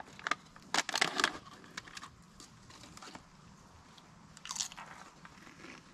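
Chips being bitten and chewed close to the microphone. There is a cluster of sharp crunches about a second in, and a shorter crunch later.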